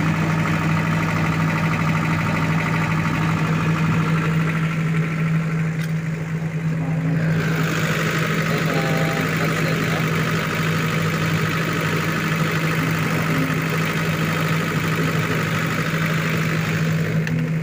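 40 kVA diesel generator set running at a steady speed, the engine and alternator giving a loud, constant drone with a strong low hum. A brighter mechanical noise comes up about seven seconds in.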